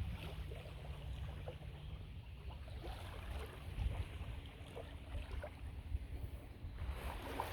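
Wind rumbling on the microphone on an open lakeshore, with small lake waves washing and lapping in an uneven, noisy wash.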